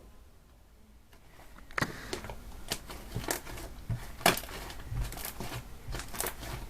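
Fluffy shaving-foam slime being pulled open and squeezed by hand, giving irregular small pops and crackles that start a couple of seconds in.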